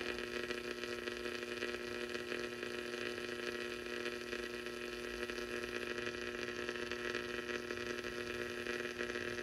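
Steady electrical hum, a drone of several even tones with a hiss under it, holding unchanged throughout.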